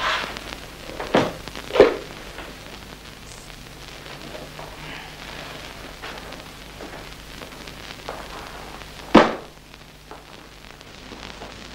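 A few sharp knocks and thumps of movement about a room: three in the first two seconds and a louder one about nine seconds in. Under them runs a steady hiss and low hum from an old film soundtrack.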